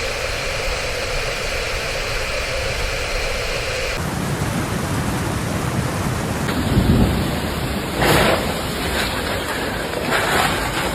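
Heavy rain with rumbles of thunder, with louder swells about seven and eight seconds in.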